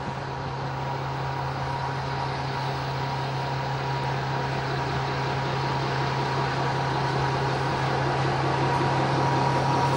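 Diesel engine of a Faur LDH diesel-hydraulic shunting locomotive running under load as it hauls a train of hopper wagons, a steady low hum with a faint high whine, growing gradually louder as it approaches.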